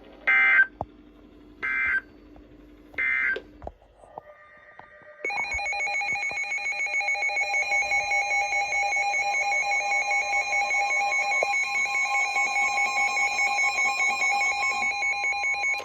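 Emergency Alert System tones: three short raspy data bursts, then after a brief pause a steady two-tone attention signal lasting about ten seconds, which marks the start of a new severe thunderstorm warning.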